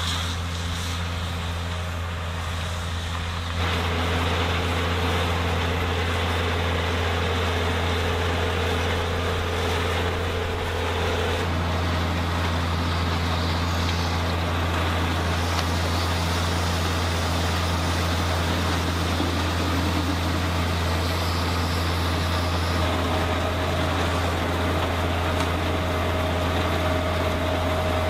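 New Holland T6050 tractor's diesel engine running steadily under load while pulling a Kuhn FBP 3135 baler-wrapper as it picks up grass, with a constant low hum.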